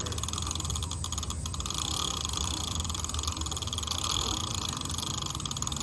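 E-bike rear wheel spinning off the ground with the chain running over the freshly wet-lubed cassette: a steady whirr with a fast, even, fine ticking.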